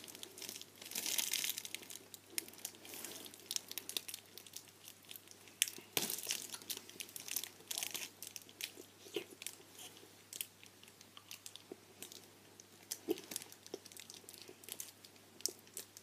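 A boy biting off and chewing a tough taffy chew close to the microphone, with the candy's wrapper crinkling in his hands: many small sharp clicks and crackles, thickest about a second in.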